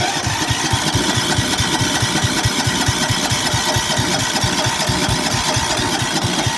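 Riding lawn tractor's electric starter, powered directly through jumper cables, cranking the engine steadily without it catching, with a fast, even low pulse. It is the starter stuck running, which the owner calls the problem.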